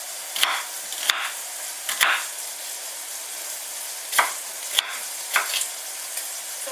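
Knife chopping an onion on a wooden cutting board, about six sharp knocks at uneven spacing, over the steady hiss of bacon and shallots sizzling in a frying pan.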